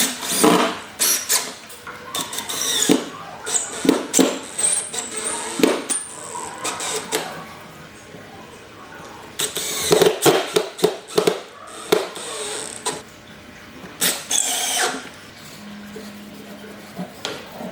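Woodworking tool noise in irregular bursts: short runs of a power tool mixed with knocks and handling of wood and tools.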